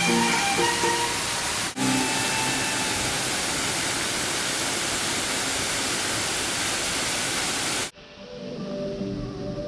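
Loud, steady rushing of a waterfall mixed with background music. The water breaks off for a moment about two seconds in, then cuts out abruptly near the end, leaving only the music.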